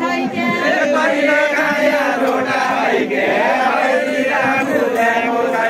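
A group of voices chanting a Deuda folk song together in chorus, many singers overlapping, as the dancers sing in their linked line.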